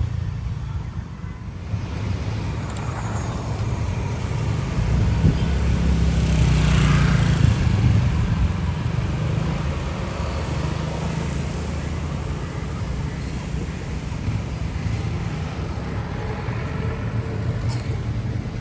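Steady motor-vehicle and road noise, swelling louder for a couple of seconds about six seconds in.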